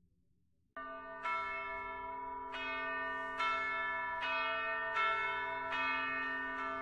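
Church bells ringing, starting about a second in after a moment of near silence, with a fresh stroke every half second or so and each note ringing on into the next.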